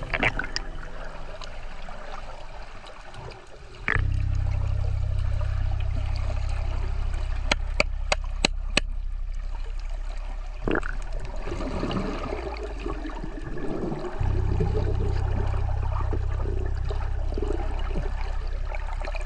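Water sloshing and gurgling around a snorkeler's camera, with a steady low drone that comes in suddenly about four seconds in and briefly drops out later. A short run of sharp clicks sounds about halfway through.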